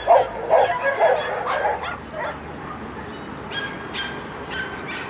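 Husky dog yipping and barking in quick repeated yelps, about two to three a second, which stop about two seconds in.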